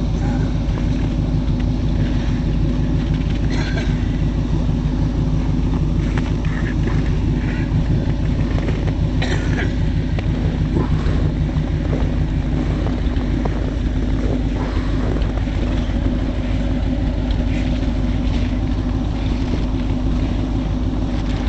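A 1947 Bombardier snowmobile's engine idling steadily.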